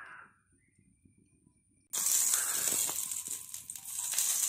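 About two seconds in, a loud sizzle starts suddenly as oil hits a hot iron tawa heated over a wood fire, and goes on hissing steadily.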